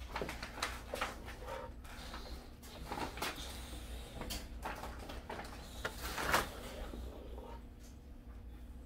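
Plastic spatula scraping and knocking inside a stainless steel pot as pudding is scooped out, a run of small clicks and scrapes with the loudest knock about six seconds in.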